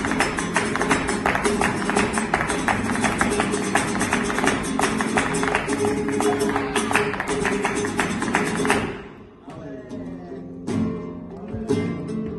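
Live flamenco music for alegrías: acoustic guitar strumming driven by rapid percussive strikes of hand claps and footwork. About three-quarters of the way through the percussion stops suddenly and the guitar carries on softer, with only a few single strikes.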